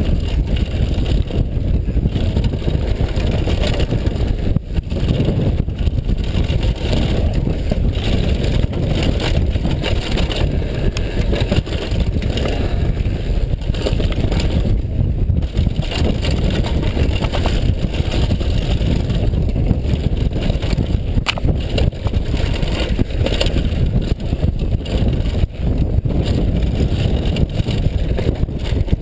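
Mountain bike descending fast on a loose dirt and gravel trail: a constant rumble of tyres on dirt and wind on the action-camera microphone, broken by frequent knocks and rattles from the bike.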